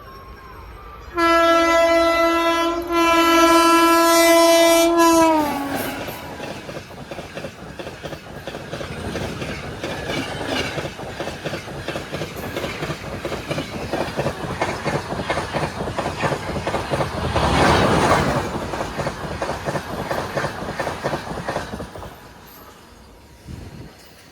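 Express passenger train passing at full speed: its horn sounds twice, a short blast then a longer one whose pitch falls as it ends, then the coaches' wheels clatter over the rail joints in a fast clickety-clack ('tadak tadak'), loudest a few seconds before it dies away near the end.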